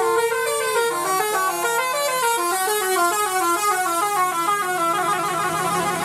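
A tour bus's 'telolet basuri' musical horn playing a melody: one held note for about the first second, then a run of quick stepping notes, several a second, going up and down in pitch.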